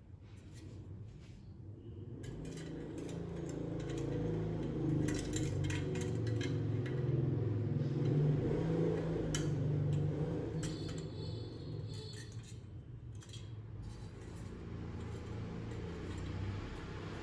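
Small hard parts being handled: scattered clinks and light rattles over a low rumbling noise that swells over the first several seconds and then eases off.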